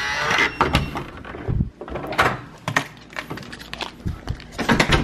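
A door's lever handle and latch clicking and the door being opened, followed by a run of clattering knocks and rattles, busiest again near the end, where a wire dog pen is being jostled.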